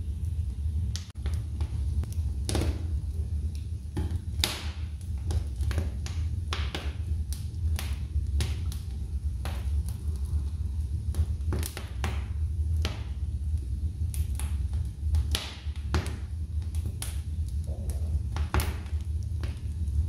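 Wood logs burning in a fireplace, crackling and popping at irregular intervals, several times a second, over a steady low rumble.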